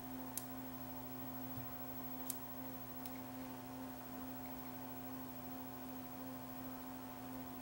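Steady low electrical hum with a few sharp little clicks in the first three seconds, made while solder joints are being worked on a stripboard.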